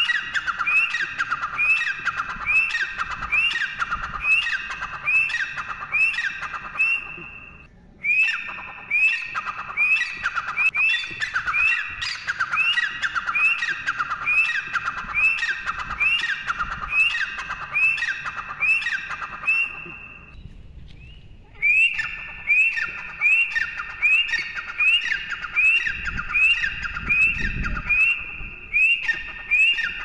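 Grey francolin (teetar) calling: a long run of loud, shrill repeated notes, about two a second, each sliding down in pitch. The series breaks off briefly about eight seconds in and again around twenty-one seconds, then resumes.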